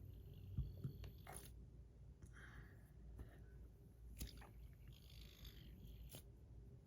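Near silence with a few faint clicks and light rubbing: a copper fidget spinner being handled in the hand.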